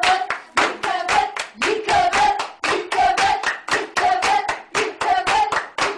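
A group clapping hands in a steady rhythm, about two beats a second, while voices sing along to the beat.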